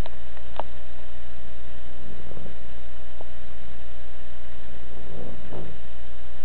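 A sleeping person snoring: two snores about three seconds apart over a steady electrical hum. The snoring comes from illness, white-coated tonsillitis and an ear infection.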